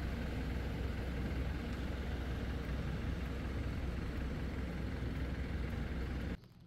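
Steady low street rumble of vehicle engine noise, with no distinct events, cutting off suddenly near the end.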